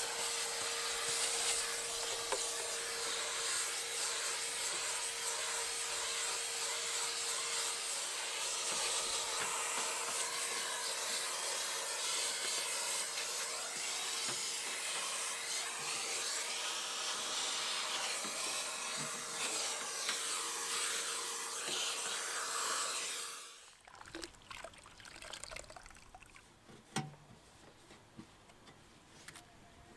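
Vacuum cleaner running with a steady rushing hiss and a steady whine, its nozzle rubbing over the plastic engine cover in a car engine bay. It switches off abruptly about three quarters of the way through, leaving faint rubbing and a sharper click as a cloth wipes the bay.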